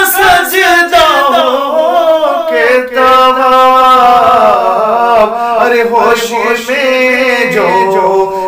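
A man singing an Urdu devotional song in long, drawn-out notes that waver and bend.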